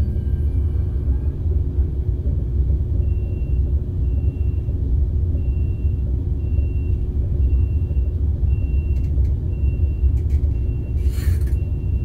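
KTX-Sancheon high-speed train running, heard inside the passenger cabin as a steady low rumble. From about three seconds in, a short high beep repeats roughly once a second. A few clicks and a brief hiss come near the end.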